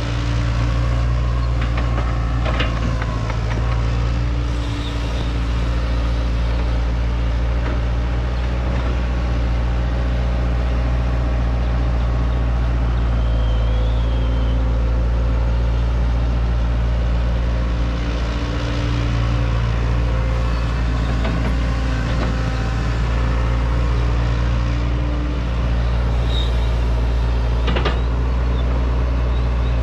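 Diesel engine of a Hitachi 120 hydraulic excavator running steadily under working load while it digs, its pitch and level swelling a little as the hydraulics work. A few sharp metallic clanks come about two to three seconds in and again near the end.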